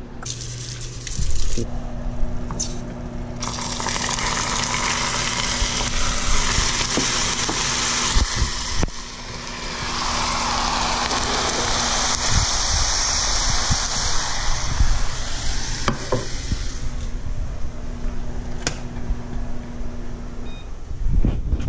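Saucepan of bubble gum in a little water boiling hard, with a loud bubbling sizzle that builds a few seconds in and dies away a few seconds before the end. A steady low hum runs underneath, with a few light clicks.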